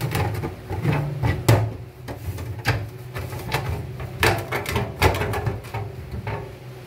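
Irregular knocks, clicks and clatter of hard objects being handled, a dozen or so, over a low steady hum.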